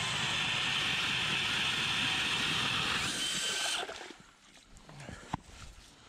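DeWalt cordless brushless drill driving a K-Drill ice auger through pond ice: a steady whine of motor and cutting flights. The drill stops about four seconds in, leaving a few faint knocks.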